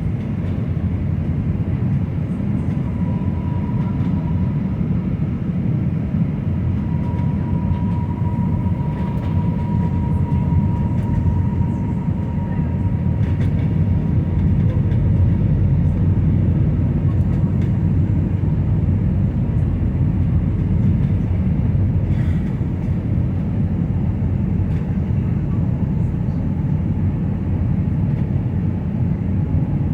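Steady cabin noise inside an Airbus A319 airliner: a low rumble of engines and airflow, with a faint thin whine that fades out about halfway through.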